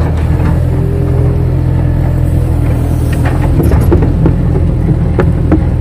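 Kato hydraulic crawler excavator's diesel engine running steadily, heard from inside the operator's cab, with several sharp knocks and clatters from the working machine, mostly in the second half.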